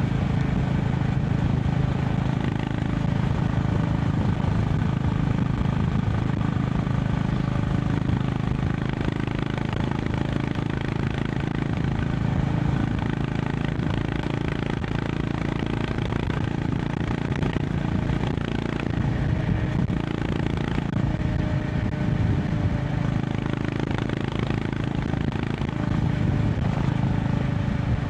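Honda CB350 RS's air-cooled single-cylinder engine running steadily under way at highway speed, its pitch holding fairly even with small rises and falls.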